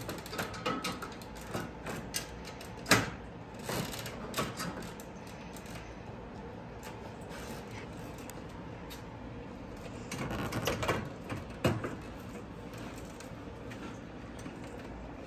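Clicks and knocks of a radiator mounting bracket being handled and fitted against the van's front end. There is one sharp knock about three seconds in and a cluster of rattling knocks around ten to twelve seconds.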